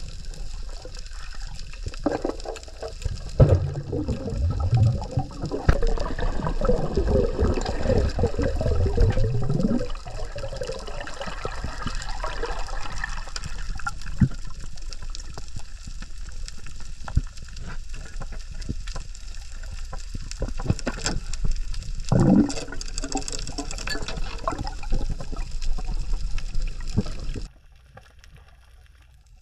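Water moving and gurgling around an underwater camera, heard muffled, with two louder spells of bubbling and churning. It drops away suddenly near the end.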